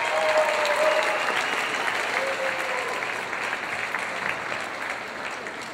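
Audience clapping with a few cheers in the first couple of seconds. The applause peaks about a second in, then slowly tapers off.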